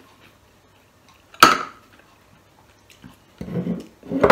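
Glass bowl and ceramic plate clinking as rice is turned out of the bowl onto the plate: one sharp clink about a second and a half in, then a duller clatter and a second loud knock near the end.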